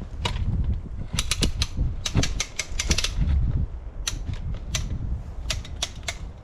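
Irregular mechanical clicking and ratcheting in quick clusters, from a felling jack being worked at the base of the tree to tip it. A low rumble runs underneath.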